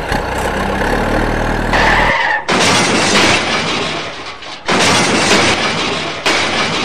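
Toy dump truck with a low, steady engine-like hum for about two seconds. Then a loud, rough scraping and crunching noise, broken by two brief drops, as the truck tips over and rolls on loose dirt.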